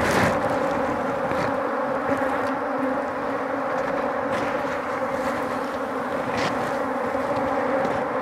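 Steady, loud buzzing of many honey bees (Africanized Apis mellifera) in the air around a hive opened for honey harvest, with a few short clicks, the clearest right at the start and about six seconds in.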